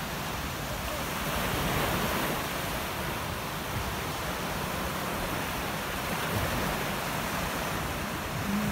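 Small waves washing onto a sandy beach: a steady rush of surf that swells a little about two seconds in.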